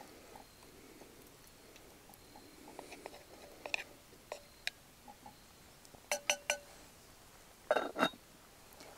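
Wooden spatula scraping and tapping faintly inside a small Lodge cast-iron camp Dutch oven, then a few sharp ringing clanks in the last three seconds as the cast-iron lid is set on the pot.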